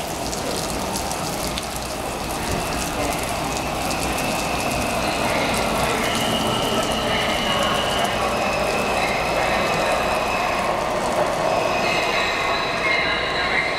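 Washington Metro Breda 3000-series subway train approaching and pulling into the station, its running noise growing louder as it nears. A high steady whine joins in from about five seconds in.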